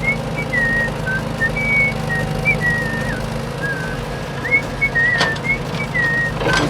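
A whistled tune of short, gliding notes over a steady low hum, with two sharp clicks near the end.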